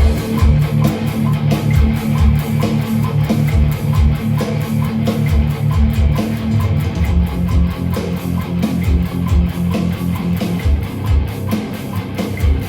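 Band music led by guitar, with bass and regular drum hits, played loud and continuous.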